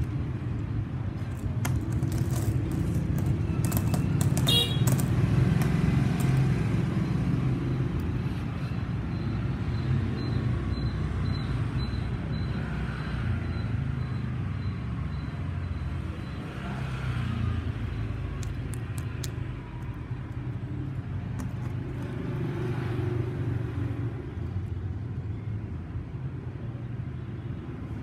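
A steady low rumble, like nearby road traffic, runs under a few sharp clicks of gold-coloured coins being handled, clustered in the first few seconds and again near the end.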